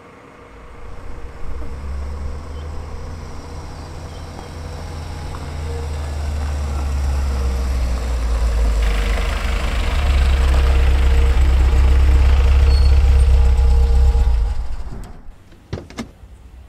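A deep low rumble with a steady hum above it, swelling gradually to its loudest for a few seconds and then dying away about fifteen seconds in; a few sharp clicks follow.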